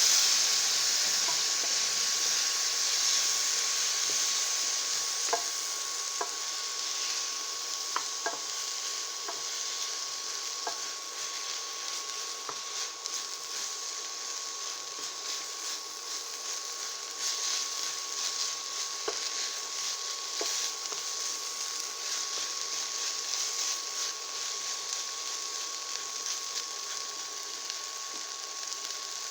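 Green peppers and onions sizzling in a hot pan just after a splash of water goes in, the hiss loudest at first and settling over several seconds. A few light clicks of a utensil stirring against the pan.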